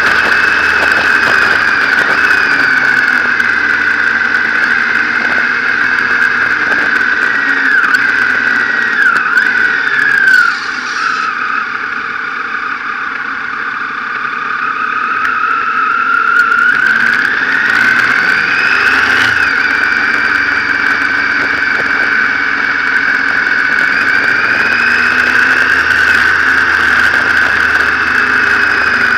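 Motorcycle engine running at steady road speed; its pitch falls as the bike slows into a hairpin bend, it goes quieter while rolling through the bend, then rises as the bike accelerates out, with a gear change about two-thirds of the way in.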